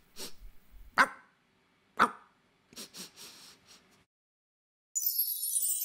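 A dog barking twice, about a second apart, with a few faint softer sounds after. Music with a bright jingling sound starts near the end.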